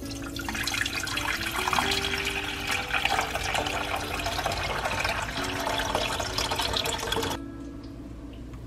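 Water poured in a steady stream into a saucepan, splashing into the water already in the pan, until the pour stops suddenly about seven seconds in.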